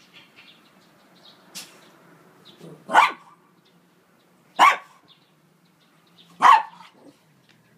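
Small dog giving three single short barks, spaced about one and a half to two seconds apart.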